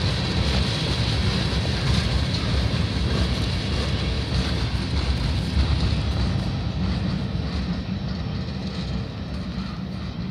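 Freight train of covered hopper cars rolling past: a steady rumble of wheels on rail that slowly fades over the last few seconds as the end of the train moves away.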